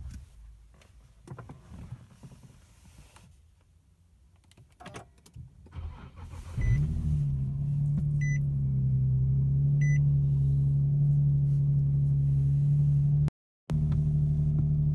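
Infiniti G37 sedan's 3.7-litre V6 starting about six and a half seconds in, the revs flaring briefly and then settling into a steady idle. A dashboard chime beeps three times as it catches. Before the start there are only a few faint clicks.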